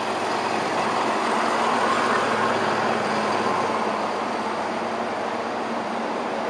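Siemens Desiro Classic (DB class 642) diesel railcar pulling out of the station past the platform: steady diesel engine and rolling noise, a little louder about two seconds in.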